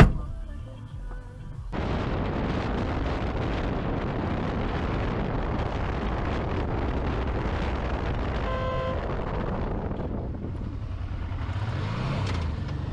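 A sharp, loud bang right at the start. Then, after a cut, the steady rush of wind and engine noise from a moving motorcycle. A horn sounds briefly about two-thirds of the way through, and the engine note rises and falls near the end.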